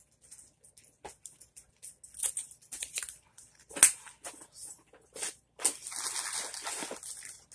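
Small plastic wax melt cups being handled and put down, with scattered light clicks and taps and one sharp knock just under four seconds in, then about two seconds of continuous crinkling and rustling of packaging near the end.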